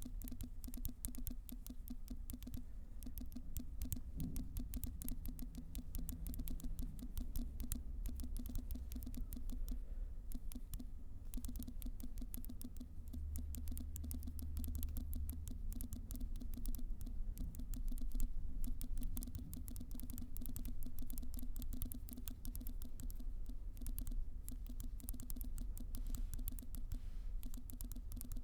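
Fingertips tapping rapidly and irregularly on a smartphone touchscreen while texting, each keypress giving a short haptic vibration buzz. A steady low hum runs underneath.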